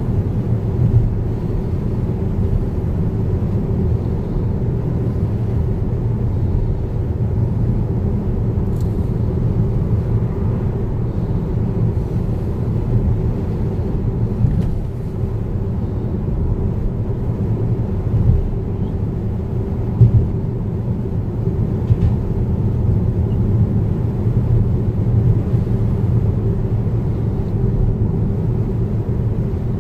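Steady low rumble of a car driving on the road, heard from inside the cabin, with a few short knocks scattered through it.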